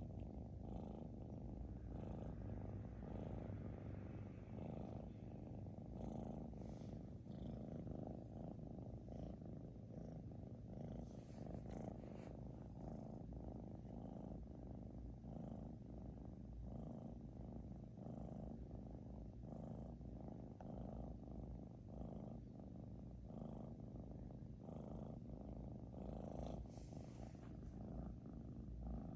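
A British Shorthair cat snoring loudly in its sleep: a steady, low, purr-like rumble.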